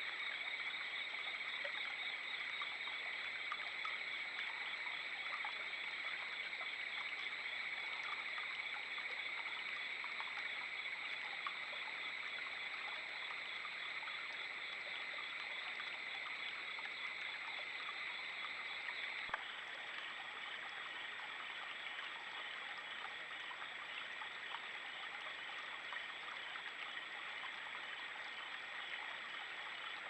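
Creek water trickling and running, picked up by a trail camera's microphone, with a steady high-pitched drone over it. The drone drops slightly in pitch and level about two-thirds of the way through.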